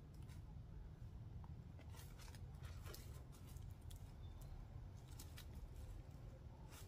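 Faint scattered scrapes and taps of a climber's hands and shoes on rock, over a low steady rumble.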